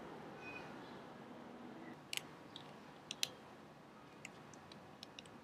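Pliers gripping and tightening the metal mounting nut of a toggle switch: a sharp click about two seconds in, two more close together a second later, then a few lighter ticks.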